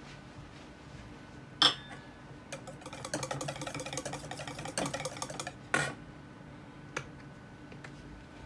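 Wire whisk beating a thick sauce in a stainless steel bowl for about three seconds, a fast scraping clatter of strokes, with a sharp metallic clank before it starts and another as it stops.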